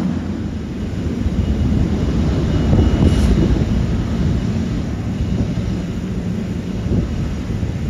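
Jet airliner's engines rumbling as it passes, swelling to a peak about three seconds in, with a faint high whine at the loudest point.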